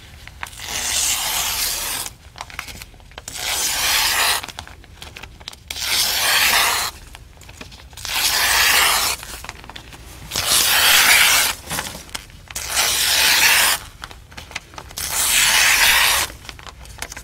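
Newspaper being torn by hand: a series of long rips, each lasting a second or so, coming every couple of seconds. The paper is being torn into strips to make the Foley sound of footsteps on grass.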